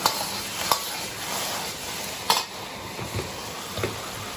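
Fried shrimp being stirred and tossed through thick sweet-and-sour sauce in a hot steel wok. The sauce sizzles steadily, and the metal ladle strikes the wok in a few sharp clinks, the loudest at the start and about two seconds in.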